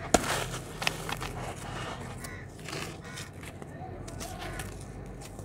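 Lumps of dry red dirt crushed and crumbled by hand, with crunching, gritty crackling and bits falling into the basin. A sharp crack just after the start is the loudest moment, and another comes just under a second in.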